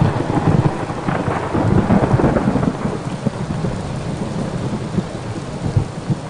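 Heavy rain with rolling thunder, the low rumble strongest in the first half and slowly fading.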